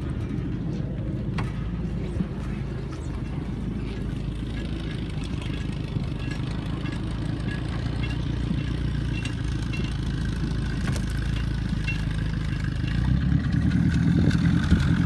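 Old farm tractor engine running steadily at a low speed while towing a bus on a chain, getting louder near the end.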